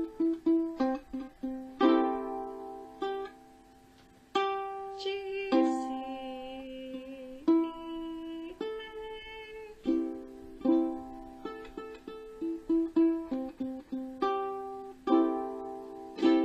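Kala Ukadelic soprano ukulele strummed and picked on its open strings in GCEA tuning. Single notes and chords ring out and die away, with a short pause about four seconds in.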